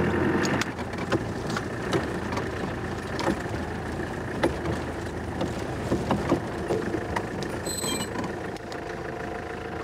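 A vehicle's engine running as it drives slowly over rough ground, with scattered knocks and rattles from the cab. A short high squeak sounds a little before the end.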